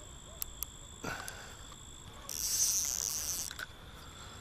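Crickets trilling steadily, with a few sharp clicks in the first second and a burst of hissing, rustling noise about two and a half seconds in that lasts just over a second.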